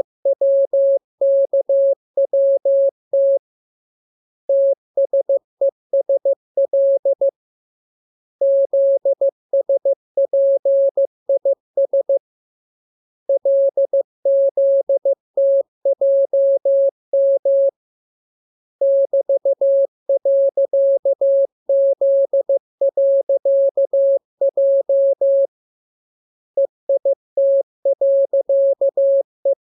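Morse code (CW) sent as one clean, mid-pitched electronic beep keyed into dots and dashes at training speed. The characters come in runs of a few seconds each, with pauses of about a second between them, as in a code-practice radiogram.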